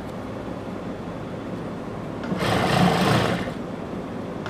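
Sewing machine running in one short burst of stitching, about two seconds in and lasting about a second, sewing a seam through the cotton and lace of a pant cuff. A steady low machine noise sits under it before and after.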